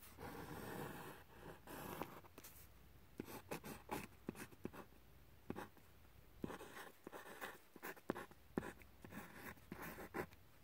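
Faint pencil-on-paper scratching: a couple of seconds of longer strokes ruling the lines of a box, then many short, quick strokes and ticks of hand lettering.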